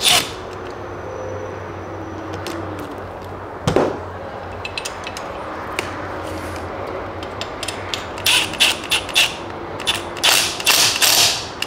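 A hand wrench tightening a bolt into an aluminium motorcycle rearset, making metal-on-metal clicks and clinks. There is a single knock about four seconds in, then a quick, uneven run of sharp clicks over the last few seconds as the bolt is run tight.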